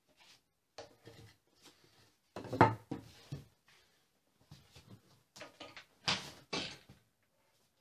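Handling noise on a wooden workbench as boards and a Bosch jigsaw are moved and set down: a few knocks and scrapes with short gaps between them, the loudest a bump about two and a half seconds in and two more scrapes around six seconds. The jigsaw is not running.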